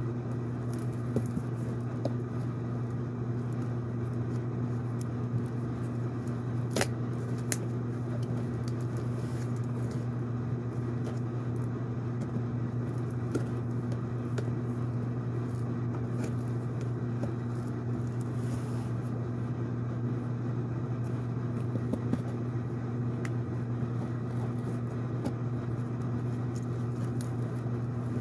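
Steady low hum of a room appliance, with scattered clicks and rustles of scissors and hands working at a taped cardboard box; two sharp clicks about seven seconds in.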